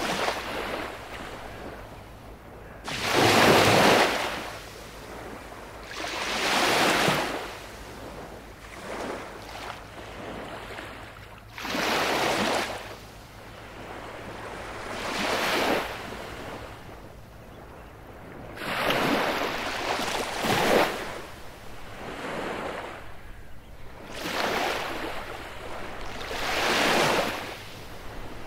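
Baltic Sea waves breaking on a beach, a new wave rushing in and washing back every three to four seconds.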